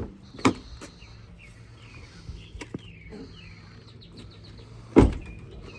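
Birds chirping with short, quick calls, over a faint steady hum. Two sharp knocks break in, one about half a second in and a louder one near the end.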